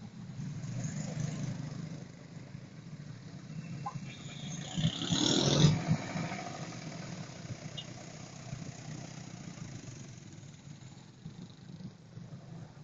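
Street traffic: car and motorcycle engines idling and running at low speed in a steady low hum. About five seconds in, a motorcycle passes close by, swelling loud and then fading.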